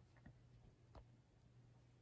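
Near silence: a Casablanca Lady Delta ceiling fan running on medium speed, barely audible as a faint steady low hum with a few faint ticks. The quiet running fits bearings in good shape.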